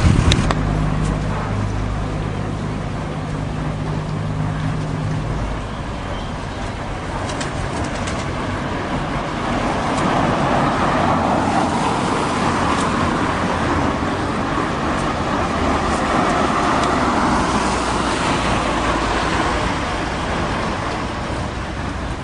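Road traffic: a vehicle engine hums steadily for the first few seconds, then road noise swells up through the middle and slowly fades as traffic goes by.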